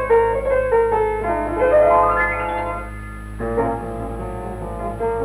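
Piano music: single notes, a rising run about halfway through, then a fuller chordal passage about three and a half seconds in, over a low steady hum.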